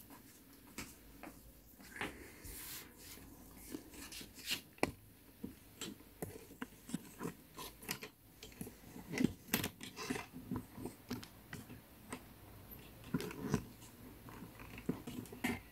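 Faint, irregular crackles and clicks of large sheets of pattern paper being handled and smoothed on a table, denser in a few short flurries.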